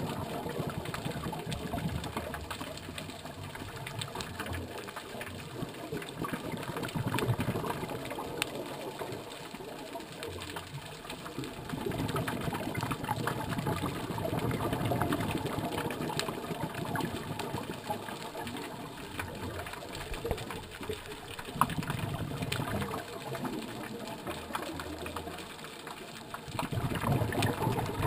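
Scuba regulator breathing heard underwater: exhaled bubbles come in loud stretches of a few seconds, with quieter gaps between them every several seconds.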